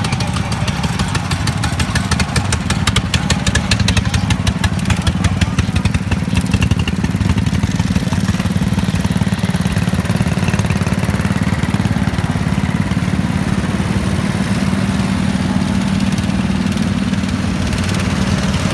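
Several racing ride-on lawn mower engines idling together in a steady low drone, with one close engine's rapid firing beat standing out about two to seven seconds in.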